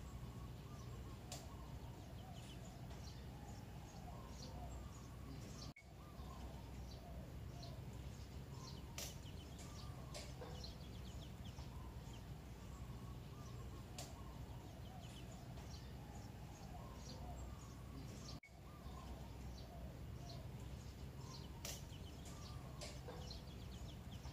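Faint outdoor ambience of birds calling, with scattered short chirps and warbling calls over a low steady rumble; the sound cuts out for an instant twice.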